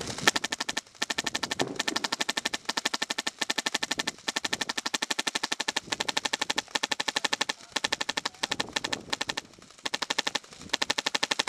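HPA-powered airsoft light machine gun, a Classic Army Stoner with a PolarStar Jack engine, firing full-auto: long strings of rapid, evenly spaced sharp shots, broken by short pauses between bursts.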